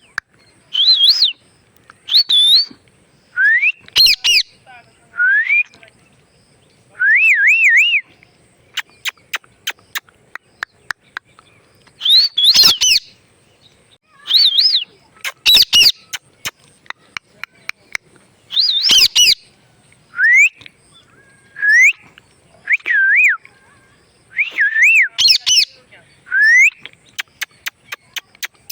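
A pet parrot whistling and calling: short rising and wavering whistles with some harsher calls, broken up by runs of rapid sharp clicks.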